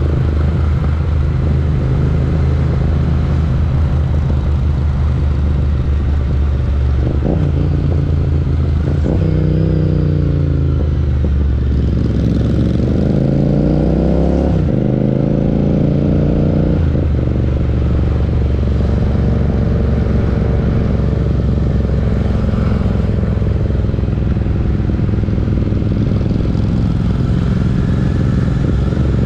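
Parallel-twin motorcycle engine running under way, with pitch rising under acceleration midway and dropping sharply twice at gear changes, then running steadily again.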